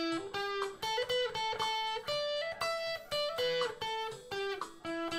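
Closing music: a guitar picking out a melody of single notes, one after another.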